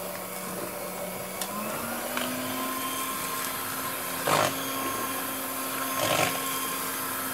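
Electric hand mixer running steadily, its twin beaters whisking thin, milky cake batter in a plastic bowl. The motor's hum rises slightly in pitch about two seconds in, and there are two brief louder noises, about four and six seconds in.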